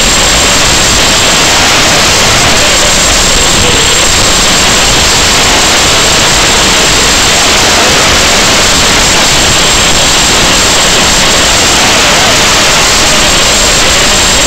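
Loud, steady static hiss from an analog FPV video link's audio channel, with a faint wavering tone underneath.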